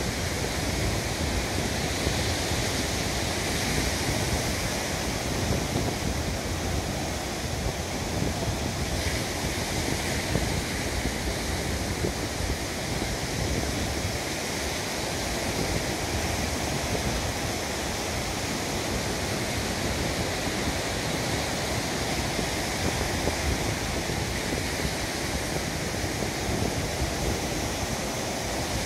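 Sea waves breaking and washing up a pebble beach, a steady surf noise, with wind rumbling on the microphone.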